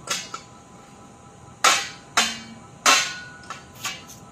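Locking pliers clanking and snapping on the crimped, rusty end of a steel straight-pipe exhaust as its mouth is bent open by hand: about five sharp metallic clanks at uneven intervals, some ringing briefly.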